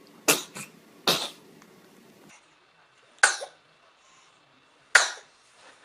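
A baby sneezing four times, each a short, sharp sneeze, about a second or two apart.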